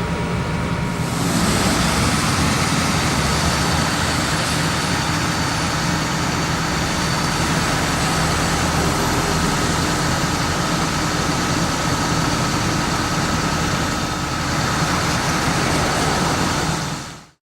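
Steady road traffic and vehicle engine noise, a little louder from about a second in, fading out at the end.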